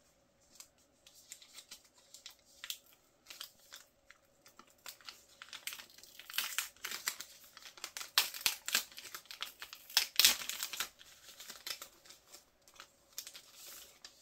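Thin clear plastic wrapper crinkling and tearing as it is peeled off by hand, in irregular crackles that are busiest and loudest in the middle stretch.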